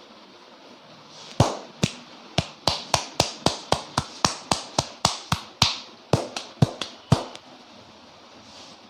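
Rapid run of about twenty sharp hand strikes on the head, three to four a second, with a short break near the end: the percussive tapping of a barber's head massage.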